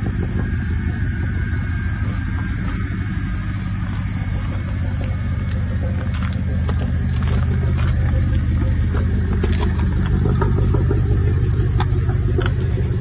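Mercedes-Benz C-Class engine idling with a steady low rumble, a little louder from about eight seconds in. Light clicks and crunches are scattered over the second half.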